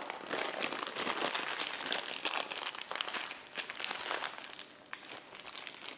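Plastic freezer bag full of whipped cream crinkling as it is handled and lifted out of a glass, the crackling thinning out near the end.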